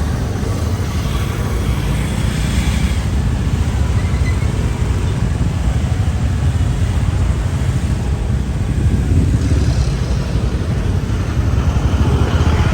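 Road traffic heard from a moving vehicle in a traffic jam: a steady low rumble of engines and road noise.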